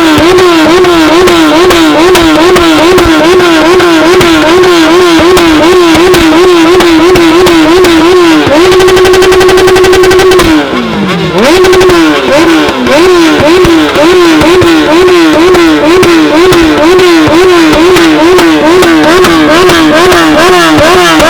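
Motorcycle engine revved hard over and over on a stationary bike, the throttle blipped about twice a second. About eight seconds in the revs are held steady for about two seconds, then fall away before the rapid revving starts again.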